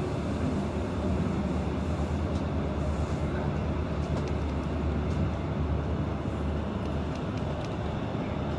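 Regional train running at steady speed, heard from inside the carriage: an even rolling rumble with a few faint ticks.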